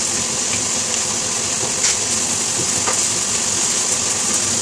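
Chicken wings and potato chunks sizzling steadily in a frying pan over a gas flame, with two faint clicks about two and three seconds in.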